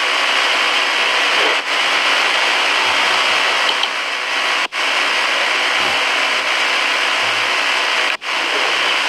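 Loud steady hiss of static on a phone livestream's audio, cutting out for an instant twice.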